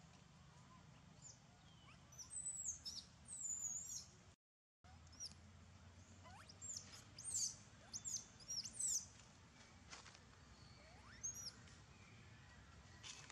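Small birds chirping: short, high-pitched chirps, most falling in pitch, coming in quick clusters over a faint low background hum. The sound cuts out completely for a moment about four seconds in.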